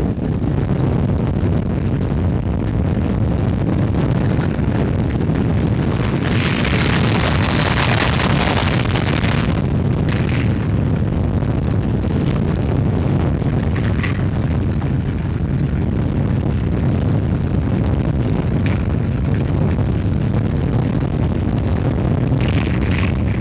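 Magnum XL-200 roller coaster train, fibreglass coaches on nylon wheels, running along its steel tubular track, heard from on board: a steady loud low rumble. From about six to nine seconds in there is a stretch of louder hiss, and a few short higher bursts come later.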